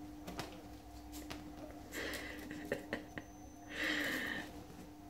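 A chihuahua puppy's faint snuffling breaths: two short breathy snorts, about two seconds in and again near four seconds, with a few light clicks as it moves about on a fleece dog bed.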